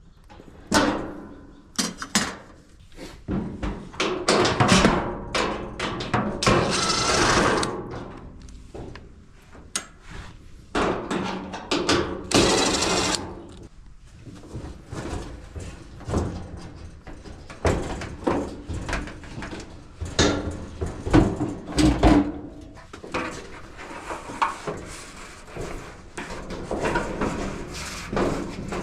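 Repeated knocks, clanks and scraping of a Whirlpool clothes dryer's sheet-metal cabinet panels and parts being handled and pulled loose during disassembly, with a couple of longer scrapes.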